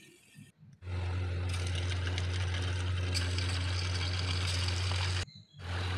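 Hot oil sizzling steadily as rice-flour kurkure rings deep-fry, over a steady low hum. The sound starts abruptly about a second in and drops out briefly near the end.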